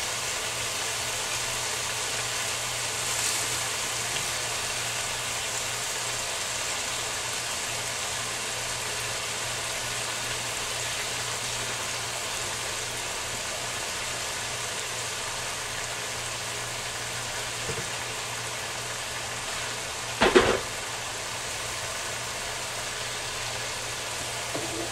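Bean sprouts frying in a pan with a steady sizzle over a low hum. A single sharp clatter about twenty seconds in is the loudest sound.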